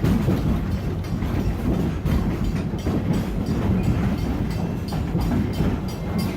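Wildlife Express Train riding along the track: a steady rumble with frequent irregular clicks and clacks from the wheels.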